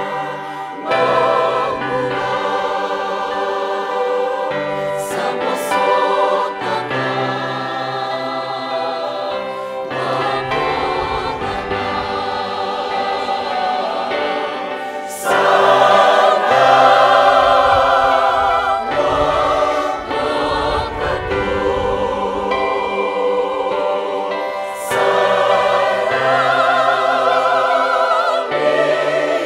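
A large mixed choir of men, women and children singing a Fijian hymn in harmony, growing louder about halfway through and again near the end.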